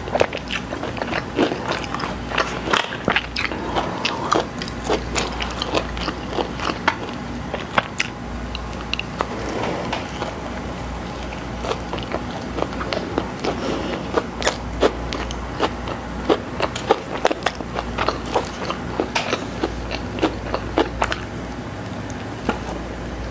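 Close-miked chewing and biting of a McDonald's Big Mac: wet mouth clicks and smacks in an irregular run, several a second, with a fresh bite near the end.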